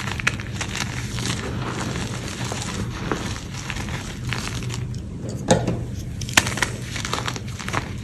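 Molded gym chalk being crushed and crumbled by hand in a tray of loose chalk powder: dense, irregular crunching and crackling, with two louder snaps about five and a half and six and a half seconds in.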